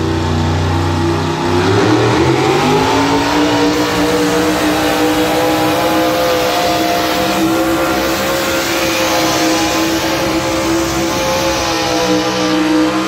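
Modified pickup truck's engine revving up hard about two seconds in, then held at high, steady revs as it drags a weight-transfer sled under heavy load in a truck pull.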